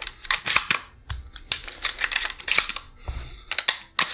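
Irregular metallic clicks and clacks of a semi-automatic 12-gauge shotgun being handled: the action and loading gate are worked by hand while dummy shells go into the magazine tube. The clicks come in small clusters, with the sharpest ones about half a second in, around two and a half seconds in, and near the end.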